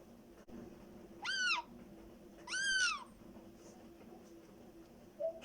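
Black-headed caique giving two drawn-out calls about a second apart, each rising and then falling in pitch, followed by a short low note near the end.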